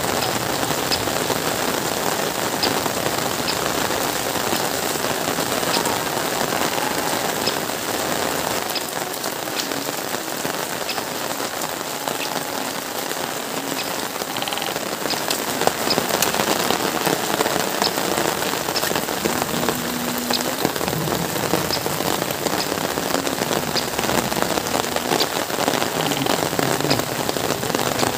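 Heavy rain falling steadily, a dense even hiss with scattered sharp ticks of single drops.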